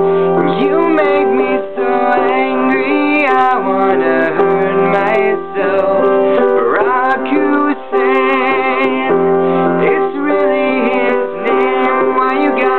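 A voice singing a slow melody with vibrato over a sustained piano accompaniment.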